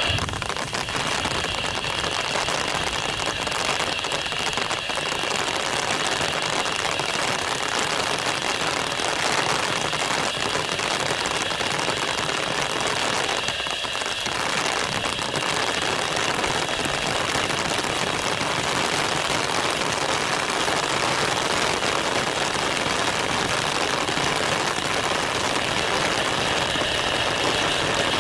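Heavy rain falling steadily, mixed with the jet engines of an Airbus A320-232 on final approach and landing, with a thin steady high whine running through.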